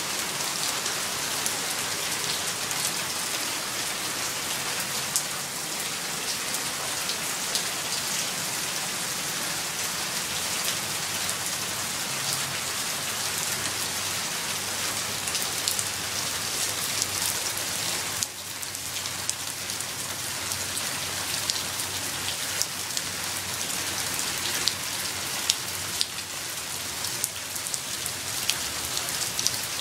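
Steady light-to-medium rain: a constant hiss with many individual drops ticking through it.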